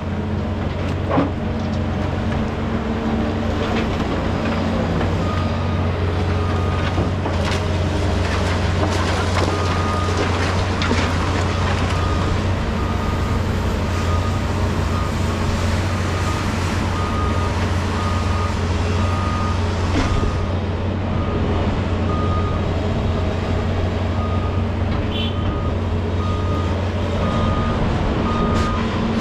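Heavy diesel construction machinery running steadily, with a backup alarm beeping about once a second from about five seconds in until near the end, and a few sharp knocks and clanks.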